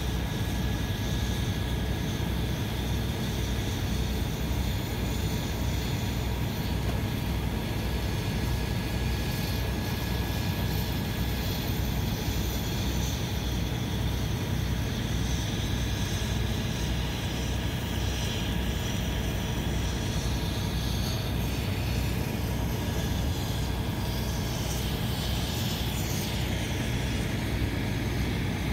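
Fire engine diesel engine running steadily, a low drone with a regular throb and a faint steady whine above it.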